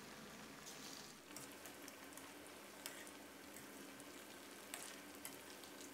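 Faint sizzling and crackling of flour-coated pork strips deep-frying in hot oil, with a couple of slightly sharper pops about three and almost five seconds in.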